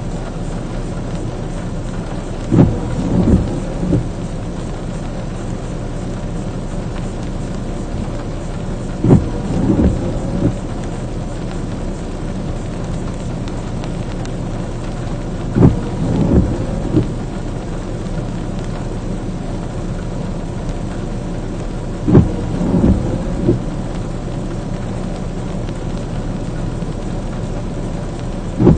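Fire truck idling at a standstill, heard from inside the cab, with a steady low hum under rain. About every six and a half seconds a loud thump and a short run of knocks comes from the windshield wipers making an intermittent sweep.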